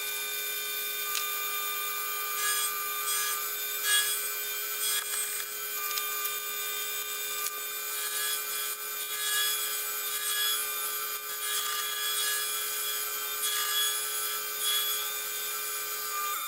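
Sherline benchtop milling machine running with a steady whine while an endmill cuts into a metal airsoft gearbox shell. Irregular scraping cutting noise comes and goes over the whine.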